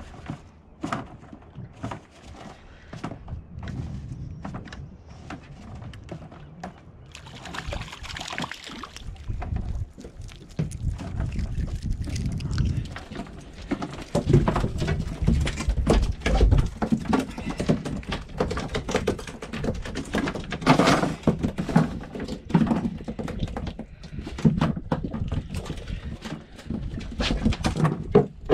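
Freshly caught mackerel flapping and slapping on a small boat's fibreglass deck: many quick, irregular thuds and taps that grow louder and heavier about halfway through, mixed with knocks from the rod and line being handled.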